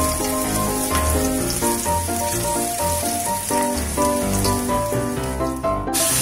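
Sliced garlic sizzling in oil on a ribbed grill pan, a crackly hiss with small pops, under light melodic background music. Just before the end the sizzle turns suddenly louder as the veal slices hit the hot pan.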